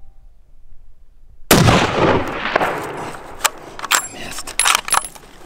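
A single rifle shot from a scoped hunting rifle about a second and a half in, sharp and loud, its report echoing and dying away over about a second. A scatter of sharp clicks and knocks follows.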